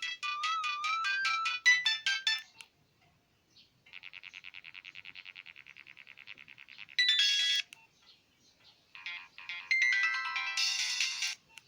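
Nokia 1661-2 phone's speaker playing several short electronic ringtone and alert tones one after another: a melody that stops about two and a half seconds in, then a rapid pulsing tone for about three seconds, a brief chime, and another melody near the end.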